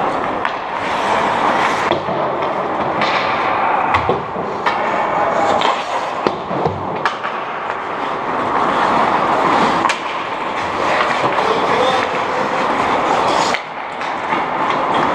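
Ice hockey skates scraping and carving on the ice, with several sharp clacks of sticks and puck, most of them between about four and seven seconds in.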